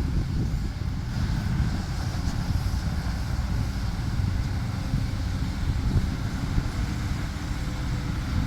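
Heavy diesel engine of a working tracked excavator, a steady low rumble.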